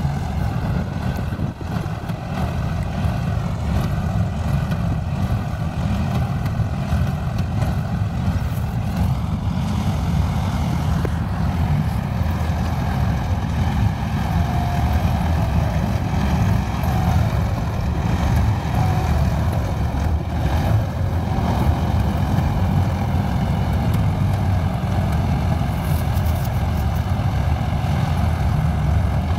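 Tractor-mounted combine harvester on a John Deere 5405 4WD tractor, its diesel engine running steadily as a low rumble while it works through the paddy.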